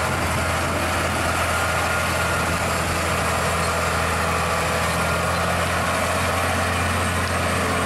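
Heavy diesel engine of a Scania truck hauling two loaded side-tipper trailers, running steadily with a deep, even hum.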